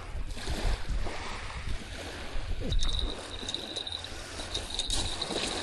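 Wind rumbling on the microphone over the wash of water at the shoreline, with a thin, steady high-pitched trill coming in about halfway.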